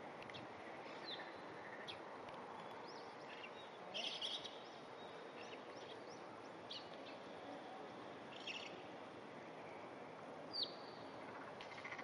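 Faint outdoor background hiss with scattered short, high bird chirps. A louder cluster of chirps comes about four seconds in, and a single falling chirp comes near the end.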